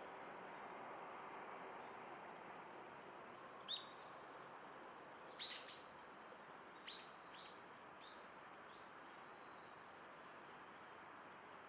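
A wild bird calling: a few short, sharp, high calls, loudest near the middle, over a faint steady background hush.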